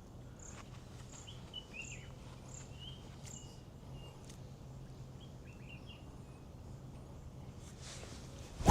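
Birds chirping: a short high note repeated about every half second, with a few lower chirped calls, over a steady low hum. At the very end comes a single sharp crack of a golf driver striking the ball off the tee.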